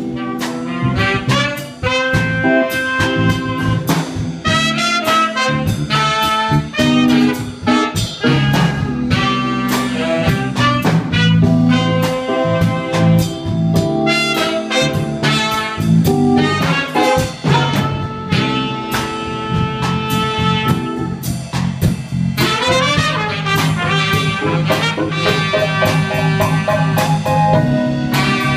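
Live jazz band playing an up-tempo tune: saxophone and brass lines in quick runs of notes over drums, bass and guitar.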